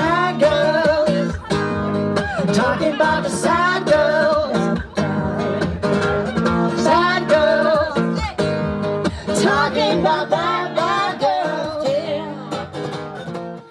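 Live band music led by guitar, with a melody line that bends in pitch over held chords, fading near the end.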